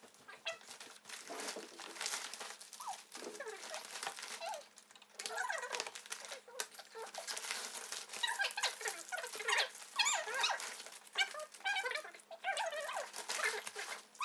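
A small pet animal making many short, high squeaky whines and yelps, with light pattering and rustling.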